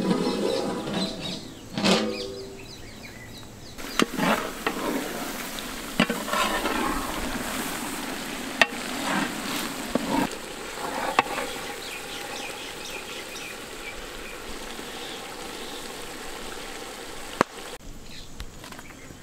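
Large pot of curry boiling and bubbling over a wood fire, with a few sharp metal clanks.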